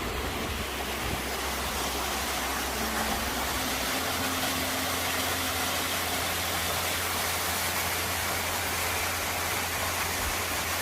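Steady, even rush of water from the waterfalls of a mountain beck.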